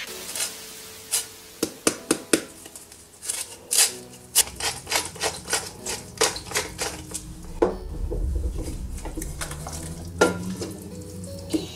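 A lemon rubbed on a small metal hand grater over a stainless steel pot, with sharp taps and clicks, then a run of quick, even clicks as pepper is ground in. In the last few seconds a wooden spoon stirs thick spinach rice in the pot with a low scraping rumble.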